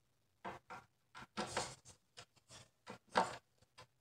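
Hands handling the horn's plywood mounting plate in a speaker cabinet: a string of short scrapes and knocks, with a longer scrape about one and a half seconds in and the loudest knock about three seconds in.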